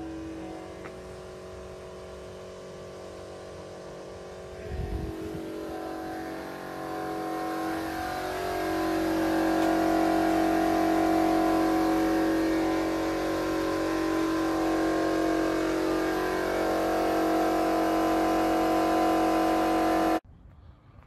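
A large engine running steadily with a strong, even hum. It grows louder about eight seconds in and cuts off abruptly near the end.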